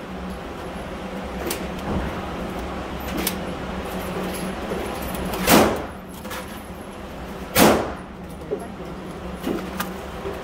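Gunfire at an indoor range: two loud shots about two seconds apart in the middle, each with a short ringing echo, over a steady hum. Small clicks and knocks of cartridges being pressed into a magazine come in between.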